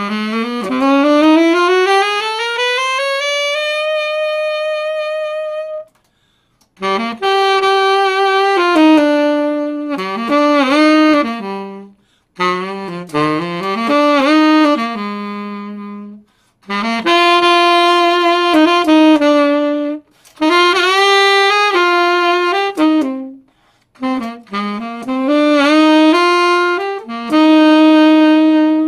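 Selmer Bundy II tenor saxophone played solo: it opens with a long rise from the bottom of its range to a held high note, then plays a series of short melodic phrases with brief pauses between them.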